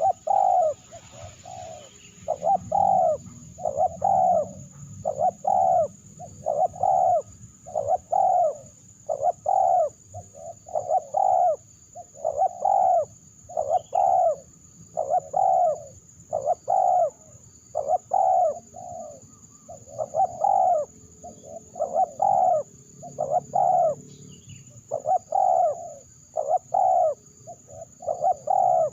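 Spotted dove (terkukur) cooing: a long, steady series of short coos at about one a second, some coming in quick pairs.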